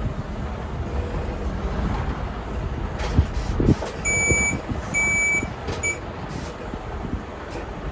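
Tractor unit's diesel engine running steadily, with a few knocks a few seconds in, then three high beeps near the middle: two longer and one short.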